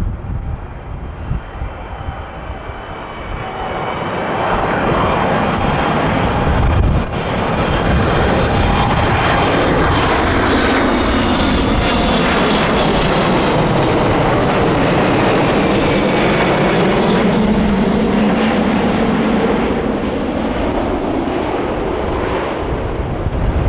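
Boeing 777-200ER airliner's twin jet engines passing on arrival, the roar building, holding loud for about ten seconds, then fading toward the end.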